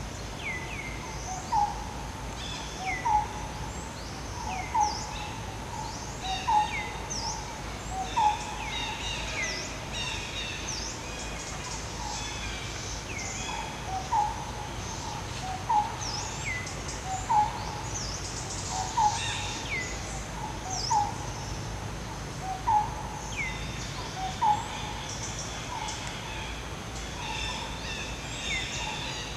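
Birds calling: one repeats a short note about every second and a half while others give quick, high falling chirps, over a steady low background noise.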